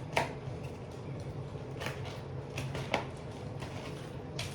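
Eating sounds from someone chewing a chicken sandwich: a few short, sharp mouth clicks and smacks at uneven intervals, over a steady low background hum.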